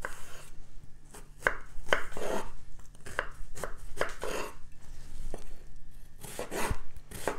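Chef's knife dicing a cucumber on a wooden cutting board: an irregular series of crisp knocks as the blade cuts through and strikes the board, some with a short crunch of the cut flesh.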